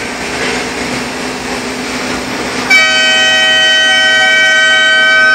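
A loud air horn with several tones sounding together, starting about two and a half seconds in and held steadily to the end, over a steady hum of machinery.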